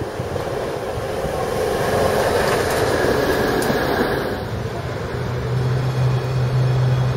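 PCC streetcar rolling on its rails past close by, its running noise growing louder about two seconds in as it goes by, then a steady low hum from about five seconds.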